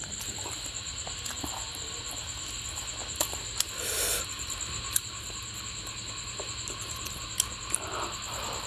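Hand-eating sounds: fingers tearing a whole curried fish and mashing it into turmeric rice, with scattered sticky clicks and a short squelching burst about four seconds in, then mouth sounds near the end as a handful is eaten. A steady high-pitched trill runs underneath.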